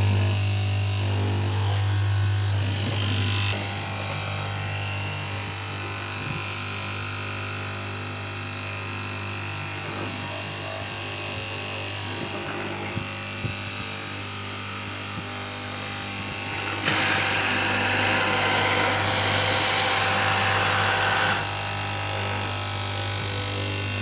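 KM straight-knife fabric cutting machine running with a steady motor hum as its reciprocating blade cuts through a stack of layered fabric. For a few seconds past the middle the sound grows louder and hissier, then drops back.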